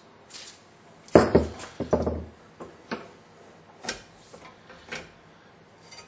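Aerosol cutting oil sprayed in two short hissing bursts about a second in, followed by a few light clicks and taps.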